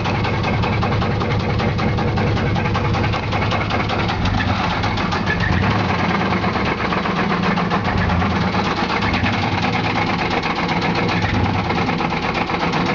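1995 Chevy Silverado's 4.3 L Vortec V6 engine running steadily with a loud, fast, even knocking over its running sound.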